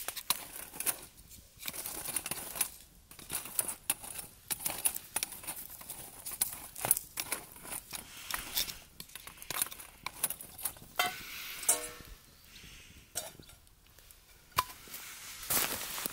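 Small twig fire crackling while dry sticks are handled and fed into it: an irregular run of sharp clicks and cracks.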